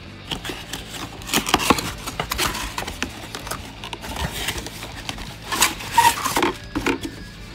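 Cardboard box flaps and a plastic bag being handled as an external hard drive is slid out of its box: irregular scraping, rustling and tapping, loudest about a second and a half in and again around six seconds in.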